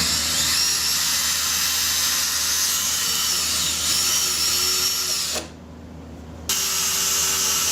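Power drill with a 1/8-inch bit pre-drilling screw holes through plexiglass. It runs steadily for about five seconds, stops briefly, then starts again about a second later.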